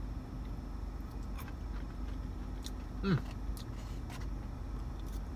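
A man eating takeout noodles with a plastic fork from a foam container: faint scattered clicks and chewing over a steady low hum in the car's cabin. About three seconds in, a brief hummed "mm" falls in pitch.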